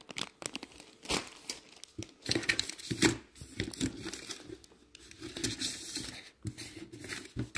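Clear plastic bag of dog chew treats crinkling and rustling as it is handled, in irregular crackles.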